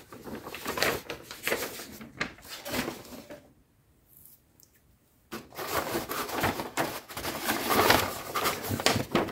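Large paper instruction sheets rustling and crinkling as they are handled and folded over, in two spells with a quiet pause of about two seconds midway.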